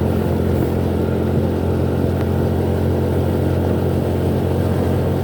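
A motorcycle engine running steadily at cruising speed with road noise, heard from the moving bike; the pitch and loudness stay even throughout.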